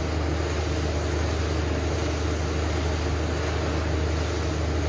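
Steady low hum with an even hiss over it, unchanging throughout, from shop equipment left running.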